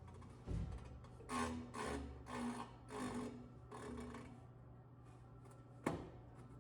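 Five short scraping strokes at an even pace of about two a second, each with a squeak, as parts are worked by hand during the fan coil blower motor fitting. A dull thump comes near the start and a single sharp click near the end.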